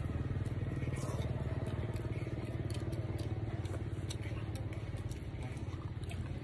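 A small engine running steadily, a low pulsing hum, with a metal spoon clicking and scraping now and then against a bowl.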